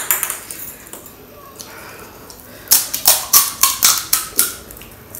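Crisp fried panipuri (golgappa) shells crunching and crackling. There is one sharp crack at the start, then a quick run of about seven crackles a little past halfway.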